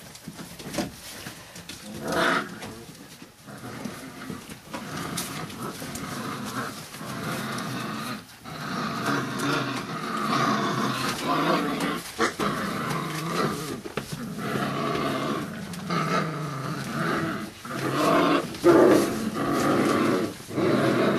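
A litter of five-week-old bandog puppies whining and yelping together in a constant, overlapping chorus, with some play growling, louder from about a third of the way in.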